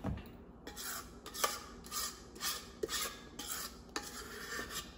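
A spoon scraping cake batter out of a mixing bowl into a round cake pan, in short repeated strokes about two a second.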